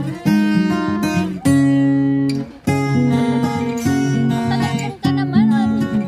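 Background music of strummed acoustic guitar chords, the chord changing about every second.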